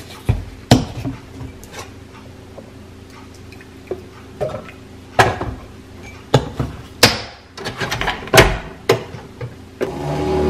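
Sharp clicks and knocks of a plastic creamer bottle and a ceramic mug being handled on a Keurig coffee maker's drip tray, with a louder clunk as the brewer's lid is shut. Near the end the Keurig starts brewing with a steady motor hum.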